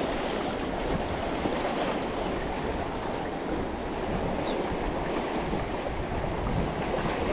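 Sea waves washing and splashing against jetty rocks, a steady surf noise with wind on the microphone.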